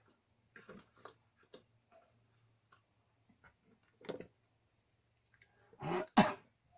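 Light clicks and knocks of tools and small parts being handled, then a man clearing his throat loudly in two bursts near the end.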